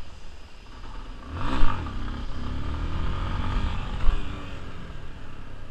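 Yamaha Lander 250's single-cylinder engine blipped sharply about one and a half seconds in, then held at higher revs with its pitch rising and falling for a couple of seconds, with a brief sharp clatter near four seconds in.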